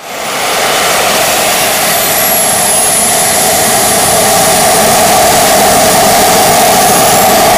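Small UAV-scale single-stage gas turbine engine running on a test stand: a loud, steady jet roar with a very high whine. The whine falls as the engine spools down from about 64,000 RPM toward idle, then starts to climb again near the end as the engine accelerates toward full throttle. This is one sawtooth cycle of a low-cycle fatigue test run.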